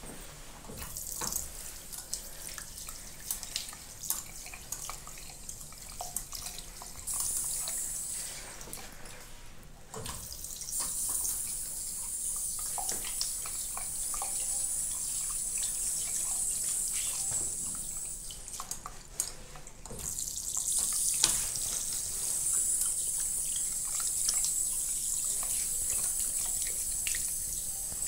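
A push-button self-closing tap runs water into a ceramic hand basin three times: a short run, then two longer runs of several seconds each. Each run shuts off by itself. A hand is held under the stream, and there are a few clicks of handling between the runs.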